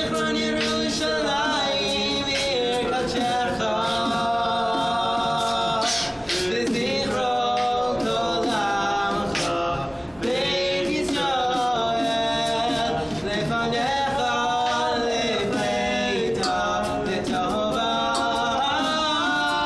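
Freestyle a cappella: two male voices singing improvised harmonies with beatboxed vocal percussion, the sung lines holding and gliding between notes, with a brief break about ten seconds in.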